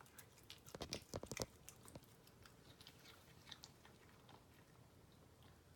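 A cat chewing raw chicken: faint, quick wet clicks and crunches, bunched together about a second in, then sparser.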